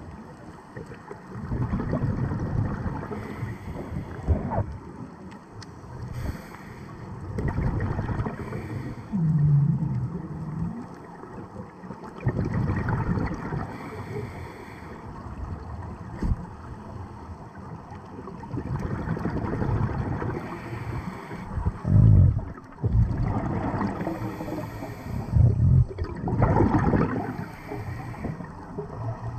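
Underwater sound of scuba diving: a diver's regulator breathing, with inhalations and gurgling exhaled bubbles in swells every few seconds.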